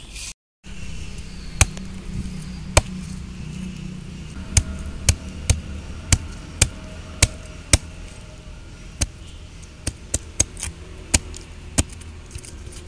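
Large kitchen knife chopping a tilapia on a wooden log, a sharp knock each time the blade strikes through the fish into the wood, at irregular intervals of about half a second to a second.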